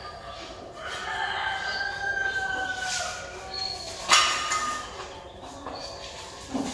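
A rooster crowing: one long call of about two seconds, starting about a second in and dipping in pitch at its end. A sharp knock follows about four seconds in.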